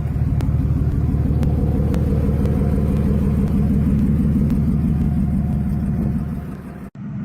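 BMW E46's engine running with the exhaust removed, loud and steady, easing off after about six seconds.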